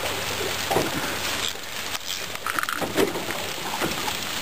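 Heavy rain pattering on the water and the aluminium boat. Scattered knocks and rattles of the rod and reel being handled come through it.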